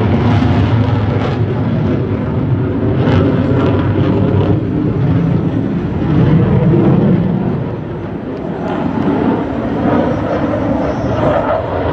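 Delta-wing fighter jet's engine noise as it flies a display, a steady loud rumble that eases slightly about eight seconds in.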